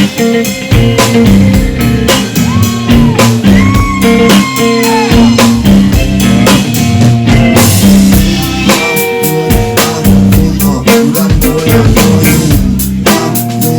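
Live band playing an instrumental passage: a steady drum-kit beat over a bass line, with some sliding notes a few seconds in.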